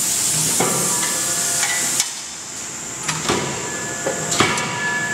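Forging shop machinery: a steady hiss that cuts off suddenly about two seconds in, and several sharp metal-on-metal clanks that ring briefly, the loudest near the end.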